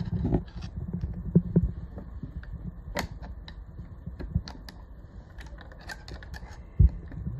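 Scattered small clicks and taps from hands working on the exposed feed dog and feed dog holder of a New-Tech GC-V5 industrial sewing machine, with a louder knock near the end. A low steady hum runs underneath.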